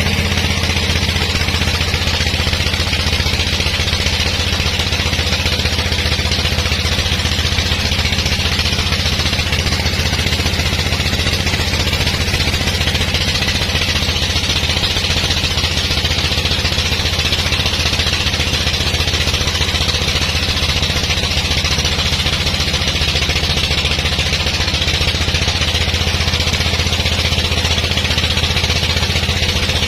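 Sawmill machinery running at a steady speed: an even engine hum with a steady hiss above it, unchanging throughout.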